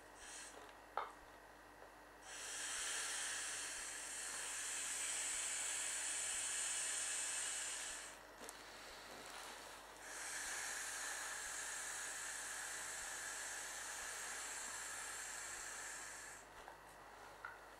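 Breath blown by mouth into the valve of an inflatable vinyl clownfish pool toy: two long blows of about six seconds each, with a pause for breath between. A brief squeak comes about a second in.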